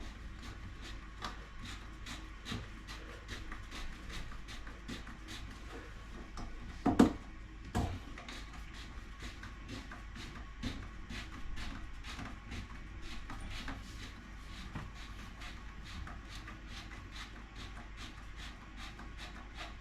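Faint, steady ticking, about two to three short clicks a second, with two louder knocks about seven and eight seconds in.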